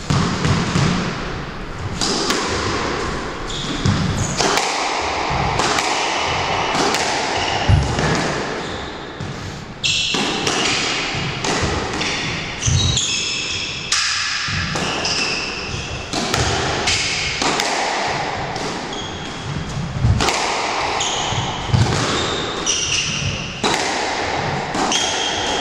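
Squash rally: the ball struck by rackets and hitting the court walls about once a second, with shoes squeaking on the wooden floor in the walled court.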